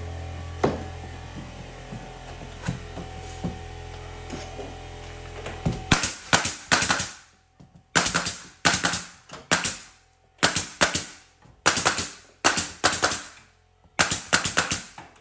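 Pneumatic nail gun firing nails into crown molding: from about six seconds in, quick bursts of three or four sharp shots, roughly one burst a second. Before that, a steady low hum with a few scattered knocks.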